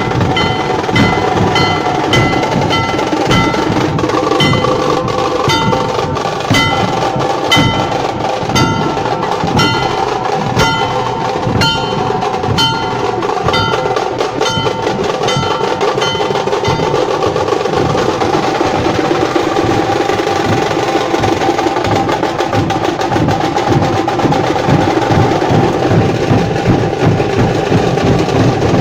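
Nashik dhol ensemble drumming hard and fast, a dense rolling beat of big barrel drums. Through the first half a ringing metal strike marks the beat about twice a second, then stops, leaving the drums alone.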